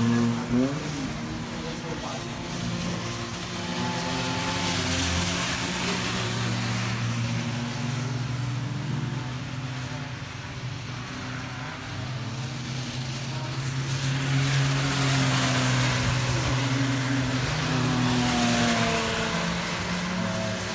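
Cars drifting through standing water on a soaked track: engines running at high revs, rising and falling as the throttle is worked, over a steady hiss of tyre spray. The engine noise grows louder twice as cars pass closer.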